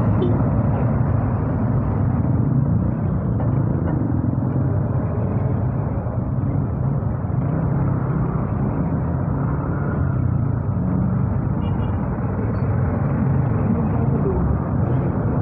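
Motorcycle engine running at low speed while squeezing through tight, slow traffic, with the hum of surrounding vehicles and road noise. The sound is picked up by an earphone used as a microphone.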